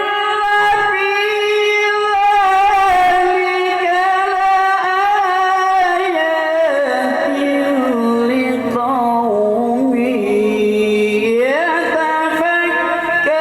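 A man's solo voice holding long, ornamented melismatic notes in the style of Quranic recitation (tilawah), with no instruments. The pitch stays high at first, slides down over a couple of seconds about halfway through, then climbs again near the end.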